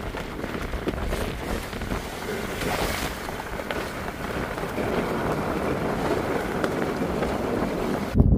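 Steady wind noise on the microphone over sea water washing around a small boat on choppy open water.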